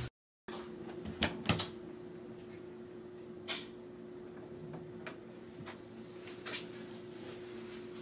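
Quiet room tone with a steady low hum, broken by a few soft clicks and knocks, two of them close together about a second in: a door being eased open.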